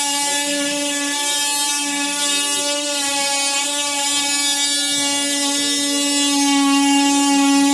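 Electric drill motor running steadily at full speed, a constant high-pitched hum with many overtones.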